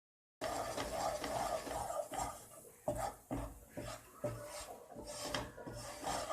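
A spatula scraping and stirring besan (gram flour) as it slow-roasts in ghee in a kadhai, a run of repeated rasping strokes against the pan.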